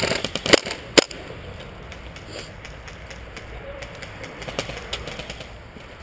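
Two sharp airsoft gun shots about half a second apart near the start, then quieter rustling as the player moves.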